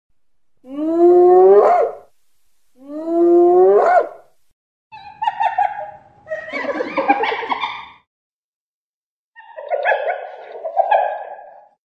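Spotted hyena whooping twice, each call a long note rising in pitch, then a run of shorter, rougher calls.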